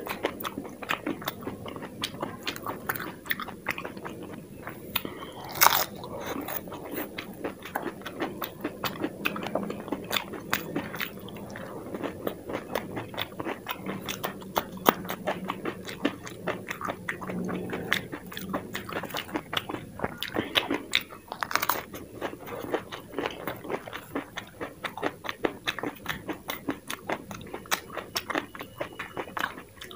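Close-miked eating: dense crunching and chewing of dahi puri shells and raw green chilies, with a few louder crunching bites about six seconds in and again past the middle.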